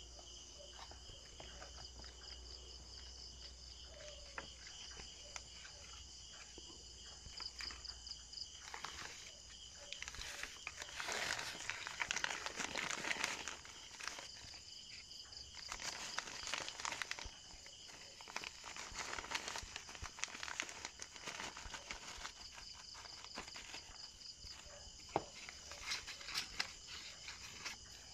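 Crinkling of a plastic nursery bag and rustle of potting mix being poured into a pot and pressed down by hand, in several bursts, loudest midway. Insects chirp steadily at a high pitch in the background.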